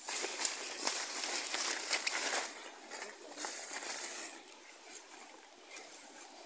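Footsteps pushing through dense leafy undergrowth, leaves rustling and crunching against legs in irregular bursts. Busiest over the first two and a half seconds, then sparser and fainter.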